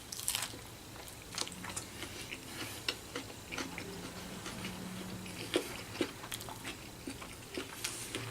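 Close-up biting into and chewing a wrap of chicken with lettuce, spinach, green pepper and pickles, with many small crunches and wet mouth clicks.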